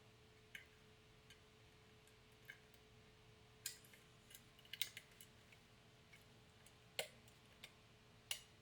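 Faint, irregular small metallic clicks of a lock pick working the pins of a "Clicky" challenge lock, about a dozen scattered clicks with a quick cluster midway, over a faint steady hum.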